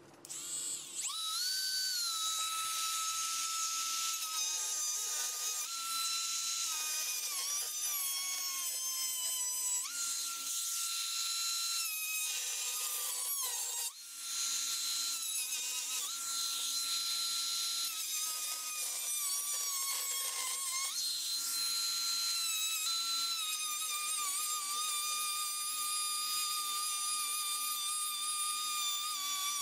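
Dremel rotary tool with a thin abrasive cut-off wheel cutting through copper sheet: a high-pitched whine that sags in pitch as the wheel bites into the metal and rises again as it eases off. It drops out briefly about halfway through, then whines on again.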